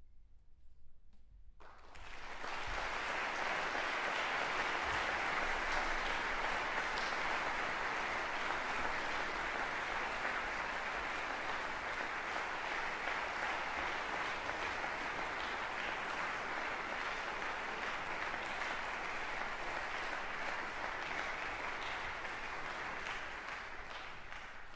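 Audience in a concert hall applauding: the clapping breaks out suddenly after about a second and a half of silence and goes on as a steady, dense ovation, fading away at the very end.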